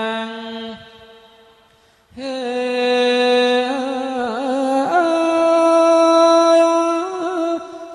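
One voice chanting Thai royal barge verse (kap he ruea) in long, drawn-out held notes that waver slowly in pitch. The first note fades out about a second in, and after a short breath a new phrase begins about two seconds in and is held almost to the end.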